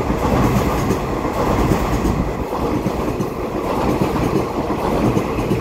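Taiwan Railway EMU3000 electric multiple unit (set EMU3001) running past along the platform at speed: a loud, steady rumble of its wheels on the rails.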